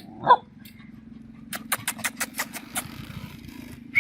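A dog gives one short rising yelp about a third of a second in. Under it runs a steady low hum like an idling engine, and a run of sharp clicks comes in the middle.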